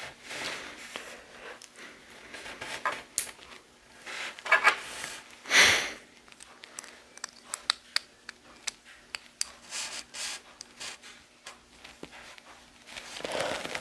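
Small clicks, taps and rubbing from handling a small plastic LEGO build, with a louder rustle about five and a half seconds in and a run of quick clicks in the second half.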